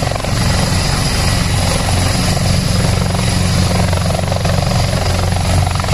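Helicopter sound: rotor blades chopping rapidly over a steady engine whine, loud and unbroken.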